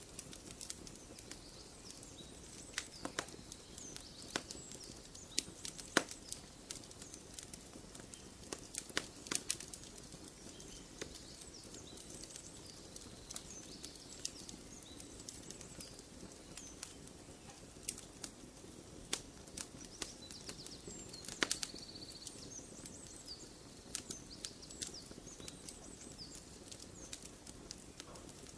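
Campfire crackling, with irregular sharp pops and snaps over a low hiss, and small birds chirping in the background.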